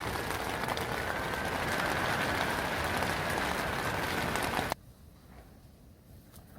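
Heavy rain falling in a steady hiss. It cuts off abruptly about three-quarters of the way through, leaving only a faint background.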